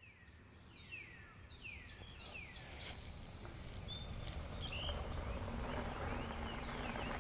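Woodland ambience fading in: an insect's steady high-pitched trill runs throughout, a bird gives a quick series of down-slurred whistles in the first few seconds, and a low rumble grows steadily louder.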